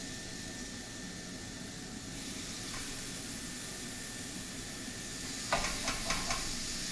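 Thin pieces of marinated raw chicken sizzling steadily on a hot preheated grill pan as they are laid on. A few sharp clicks near the end come from the metal tongs against the pan.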